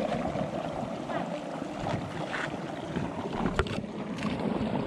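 Wind buffeting the microphone as a steady rumble, with a couple of sharp clicks about three and a half and four seconds in.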